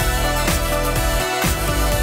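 Music with a steady beat and a strong bass line.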